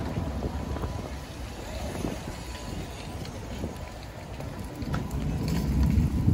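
Wind buffeting the microphone: a low, uneven rumble that eases in the middle and builds up again near the end.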